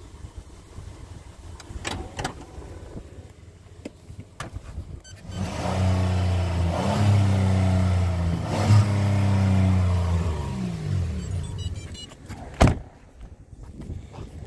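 Chrysler Grand Voyager's engine starts about five seconds in, idles steadily for about five seconds, then is switched off and winds down. A single sharp knock near the end, like a car door shutting, with a few light clicks earlier.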